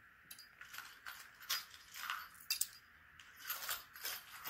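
Small trinkets clicking and rattling in a cardboard gift box as fingers pick through them, a string of faint, irregular light clicks and tinkles.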